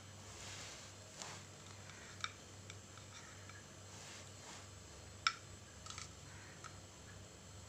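Occasional light clicks and taps of a steel knife against a ceramic plate as orange segments are slit open and the seeds picked out, over a faint steady low hum.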